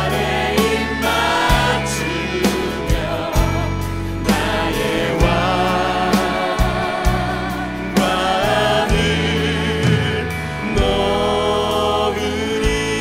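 Worship band music with voices singing a gospel-style praise song over a steady beat, an Alleva Coppolo LG5 five-string electric bass played fingerstyle carrying long, held low notes that change every beat or two.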